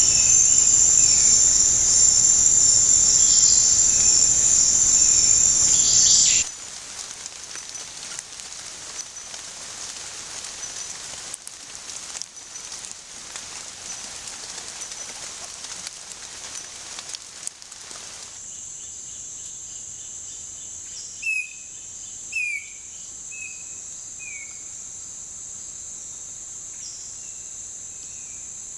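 Rainforest insects droning on a loud, steady, high-pitched note that cuts off suddenly about six seconds in. A quieter hiss follows. In the last third, a thinner high insect whine returns and a bird gives a few short, falling chirps.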